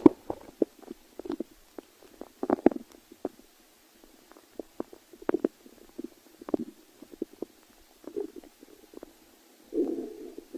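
A person's stomach growling: irregular gurgles and short squelching pops, with a longer gurgling rumble near the end.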